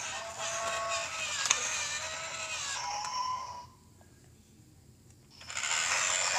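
Battery-powered LEGO Duplo toy train engines running, a motor whir with pitched tones over it and a click about a second and a half in. It stops about three and a half seconds in and starts again about five and a half seconds in as the second engine rolls up.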